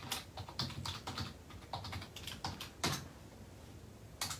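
Typing on a keyboard: a quick run of irregular key clicks lasting about three seconds, then a pause and one more click near the end.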